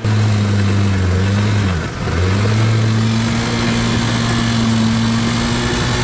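Hero Honda 100cc four-stroke single-cylinder motorcycle engine running steadily as it drives a homemade boat, with water churning and splashing behind. About two seconds in, the revs dip briefly and then pick back up.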